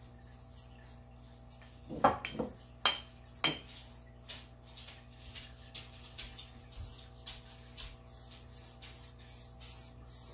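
A brush tapping against a glass paint jar makes four sharp clinks about two to three and a half seconds in. After that comes a run of soft, regular swishes of a paintbrush stroking chalk paint onto a wooden nightstand.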